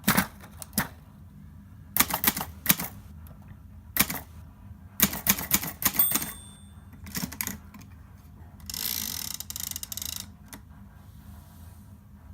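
Hermes Baby portable manual typewriter being typed on in short bursts of clacking keystrikes. There is a brief ringing tone about six seconds in, and a steady rasping sound lasting about a second and a half near the end.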